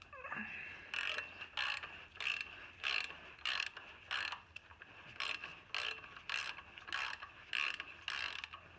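Hand ratchet clicking in steady back-and-forth strokes, a little under two a second, as it turns a bolt-extractor socket to work a rusted, rounded manifold nut loose.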